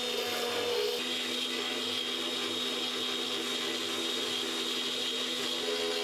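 X-Carve CNC router's spindle running steadily with a high whine as its end mill cuts through aluminium sheet. The machine is shaking quite a bit under the cut, pushed to the limit of what it can mill.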